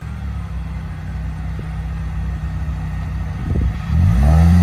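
Off-road vehicle engine running steadily at low revs, then revving up a little under four seconds in, its pitch rising and growing louder.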